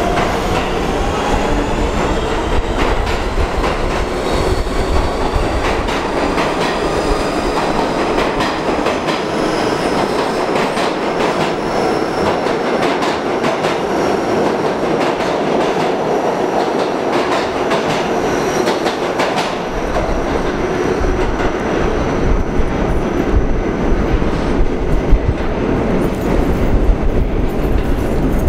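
R46 subway train running past at speed, with a dense rumble and rapid clacking of wheels over rail joints. A whine rises in pitch at the start, and thin high wheel squeals come and go. About twenty seconds in the rumble turns deeper, with sharper, louder clacks.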